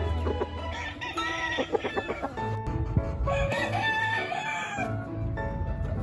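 Roosters calling: short clucks and calls about a second in, then a rooster crowing for about a second and a half starting past the middle, over background music.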